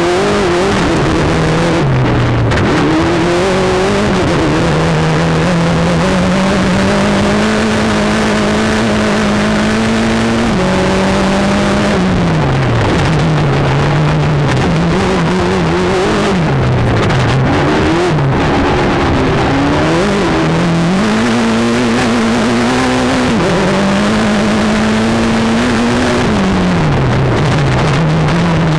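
Mitsubishi Evo turbocharged four-cylinder engine of an off-road race sedan, heard from inside the car. It pulls up through the revs and drops back again and again as the car accelerates, shifts its sequential gearbox and lifts off, with constant road and chassis noise underneath.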